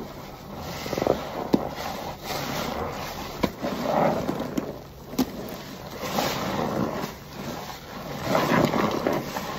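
Perforated car wash sponge loaded with thick laundry-detergent foam being squeezed and kneaded by hand: wet squelching of sponge and foam in irregular swells, with a few sharp pops.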